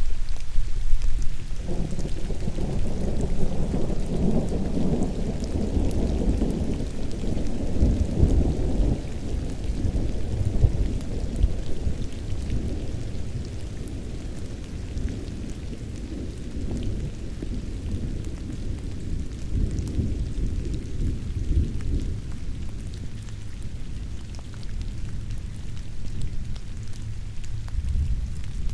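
A long, low roll of thunder in a thunderstorm, with steady rain and the ticks of single raindrops throughout. The thunder swells up about a second and a half in, is loudest over the next several seconds, and slowly dies away over about twenty seconds.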